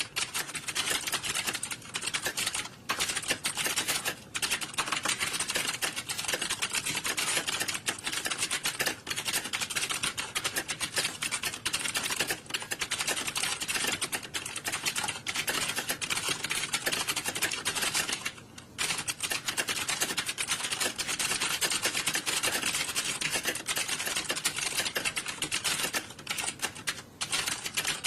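Computer keyboards typed on rapidly, as in an exam hall typing test: a dense, continuous clatter of key clicks with a few brief lulls.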